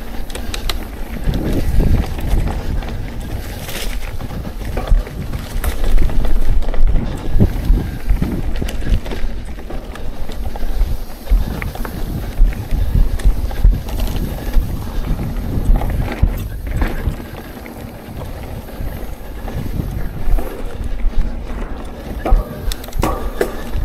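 Mountain bike riding fast down a dirt singletrack: tyres rumbling over dirt and dry leaves, and the bike rattling and knocking over bumps, with wind noise on the microphone. The rattling eases off briefly after about two-thirds of the way through.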